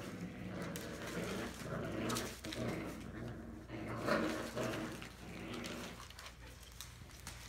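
Five-week-old Entlebucher Mountain Dog puppies vocalising in short repeated calls, loudest about four seconds in.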